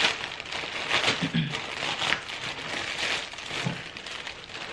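Plastic shipping mailer bag crinkling and rustling as it is handled and pulled open.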